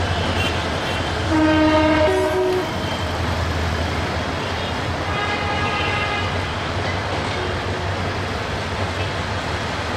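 Bangladesh Railway diesel locomotive horn: one loud blast of about a second and a half, stepping up to a higher note partway through, then a fainter horn about five seconds in, over the steady low rumble of the trains.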